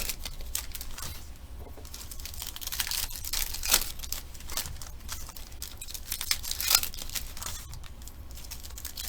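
Foil trading-card pack wrappers crinkling and tearing as packs are ripped open, with sharper rips about four and seven seconds in.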